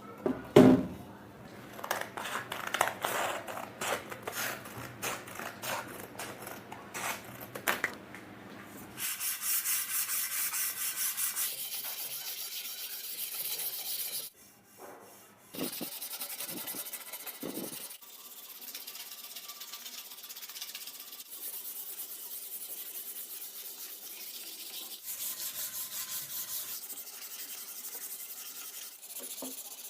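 Old paint being sanded off a metal bicycle frame by hand. For the first several seconds it comes as separate rubbing strokes, then as a denser, steadier scratching hiss with a brief pause about halfway through.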